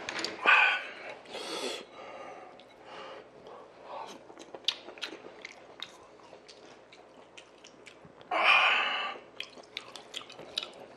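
A man eating sundaeguk (pork offal and blood sausage soup) close to the microphone: wet chewing with many sharp mouth clicks and smacks, and two short louder mouth or breath sounds near the start and about eight seconds in.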